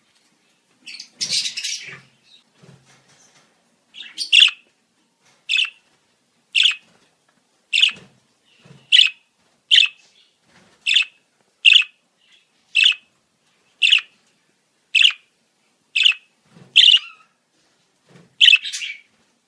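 Budgerigar calling: a short burst of chatter, then a run of sharp chirps repeated about once a second.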